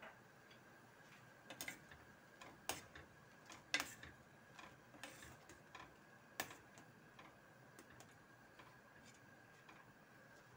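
Faint, irregular clicks and taps from a stainless steel pan of simmering coconut milk as a spatula stirs it, over a faint steady high whine.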